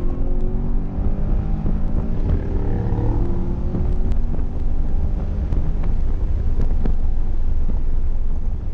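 Chevrolet Camaro engine and road noise heard from inside the cabin at speed. The engine note is clear for the first few seconds, then wind and tyre rumble dominate, with scattered small ticks and clicks.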